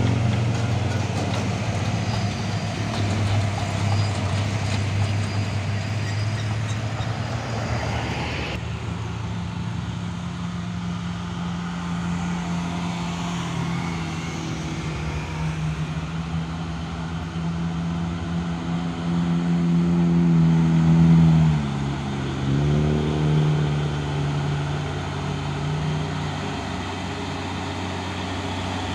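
Heavy diesel truck engine pulling under load, its pitch climbing and getting louder, then dropping suddenly about two-thirds of the way through as it changes gear, and rising again. Before that, traffic noise of passing vehicles and idling trucks.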